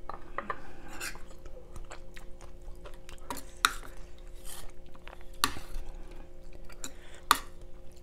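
A metal spoon stirring and scooping coconut curry in a wooden bowl: soft scraping with a few sharp clinks, three of them standing out.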